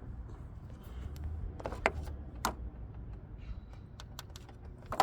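A handful of short, sharp plastic clicks, irregularly spaced, like the buttons of a handheld diagnostic scan tool being pressed to move through its menus, over a low background rumble.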